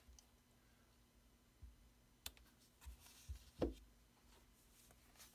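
Quiet desk handling of a clear acrylic stamp block: a light click a little over two seconds in, then a soft thump partway through as the block is set down on the desk after stamping.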